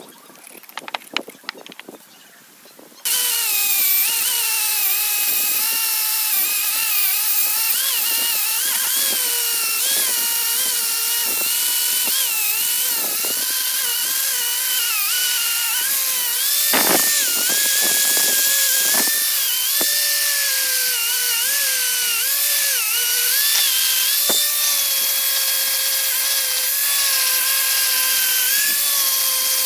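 Angle grinder with a wire wheel brush, scouring rust off a cast-iron vise body. After a few light clicks it starts abruptly about three seconds in, a loud steady whine over a harsh hiss whose pitch wavers up and down as the wheel bears on the metal.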